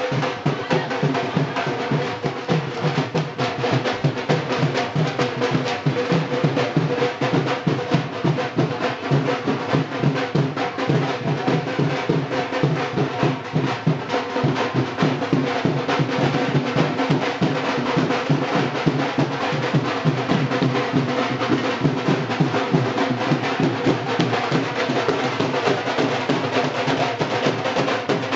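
Festival procession drumming: fast, steady beats without pause, with a held tone running underneath.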